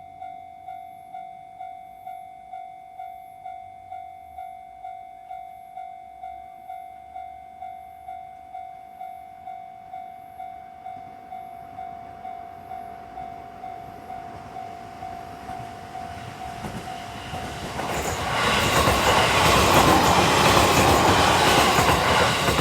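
Japanese railway level-crossing warning bell dinging evenly, nearly twice a second. An E233-series electric train approaches and passes loudly over the crossing in the last few seconds, with wheels clattering, while the bell keeps ringing underneath.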